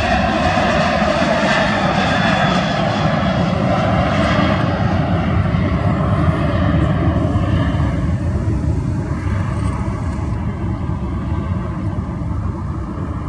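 Ryanair Boeing 737 jet engines at takeoff power: a loud, steady rumble with a high hiss that thins out from about halfway through, the level sinking slightly as the aircraft moves away.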